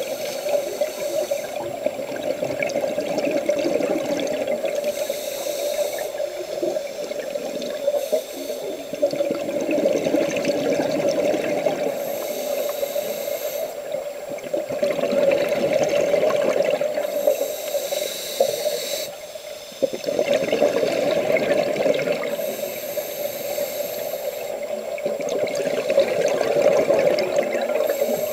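Scuba regulator breathing heard through an underwater camera housing: a hissing rush of exhaled bubbles about every five to six seconds, over a steady muffled hum.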